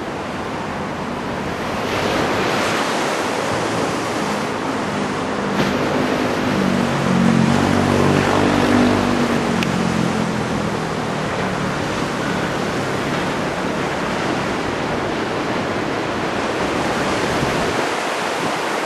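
Heavy typhoon surf breaking and rushing, mixed with gusting wind, as one steady roar. A low droning tone swells up and fades away in the middle.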